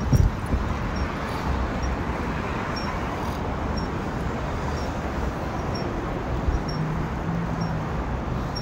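Wind on the microphone and tyre rumble from a bicycle being ridden over asphalt, with a thump right at the start. Faint short high squeaks repeat about twice a second.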